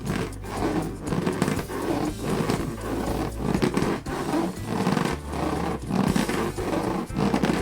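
Latex balloons being squeezed and rubbed, giving a run of low rubbery squeaks and groans, one stroke after another.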